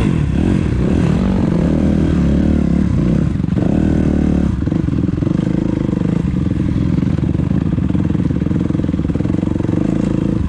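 Dirt bike engine being ridden slowly through mud, revving up and down in the first half, then holding a steadier pitch from about halfway.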